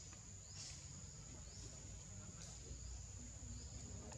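Faint, steady high-pitched insect drone, with a few short rising chirps over it and a low rumble underneath.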